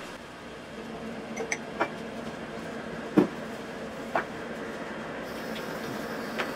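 Pork chops frying in oil and soy sauce in a pan: a steady sizzle with a low hum under it, and about five light clicks of a utensil against the pan.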